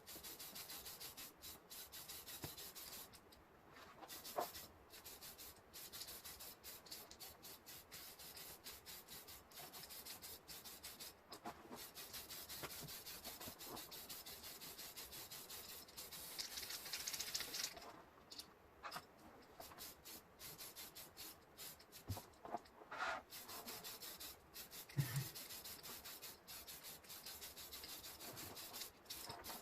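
Faint, steady rubbing and scratching with many small clicks, a brief hissy stretch about halfway through and a soft knock near the end.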